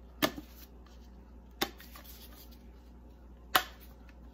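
Three sharp kitchen clicks, one just after the start, one about a second and a half in and one near the end, from handling a seafood seasoning container and measuring spoon while the seasoning is added to a flour batter.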